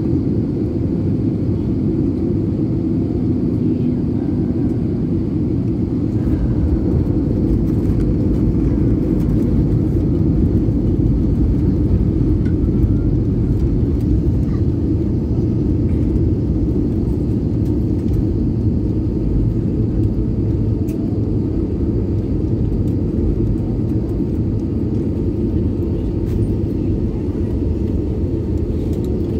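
Cabin sound of an Airbus A320neo touching down on a wet runway and rolling out: a loud, steady rumble that deepens and grows louder about six seconds in, then eases off slowly as the aircraft slows.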